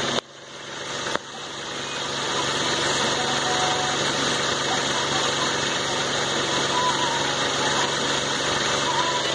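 Hyundai HB20 engine idling, its accessory belt turning over the alternator, water pump and idler pulleys, the short 5PK938 belt that bypasses the air-conditioning compressor. After two brief breaks near the start, the running sound grows louder over a second or two and then holds steady.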